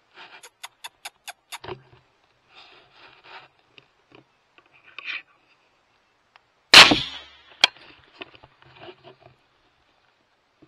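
A single rifle shot, sudden and very loud, about two-thirds of the way through, fired at a coyote through a thermal scope; a second sharp crack follows under a second later. Before it comes a quick run of about six faint clicks near the start, then scattered small clicks and rustles.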